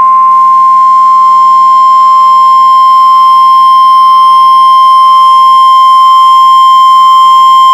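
NOAA Weather Radio warning alarm tone: a single loud, steady tone of about 1050 Hz, held unbroken. It signals that a warning message is about to be read, here a severe thunderstorm warning.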